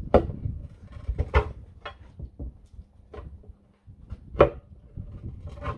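Steel tyre lever knocking and scraping against the steel rim of a tractor rear wheel as the tyre is pried off the rim: about six sharp knocks, the loudest near the start and about four and a half seconds in, some ringing briefly.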